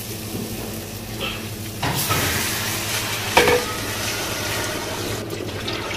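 Rice frying in a large steel pot with a soft sizzle. About two seconds in, water is poured onto it from a steel jug, and a louder hiss and the rush of pouring water start.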